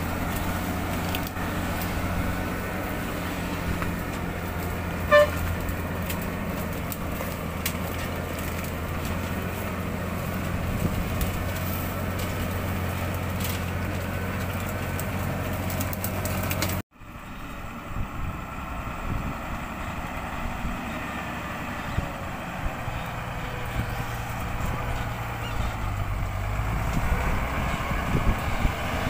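Loaded Hyundai log truck's diesel engine running steadily, with a short horn toot about five seconds in. The sound cuts out abruptly past halfway and returns with the engine running, its speed shifting briefly later on.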